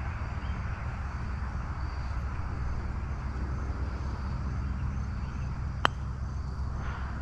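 A golf club strikes the ball once, a single sharp click about six seconds in, over a steady low outdoor rumble.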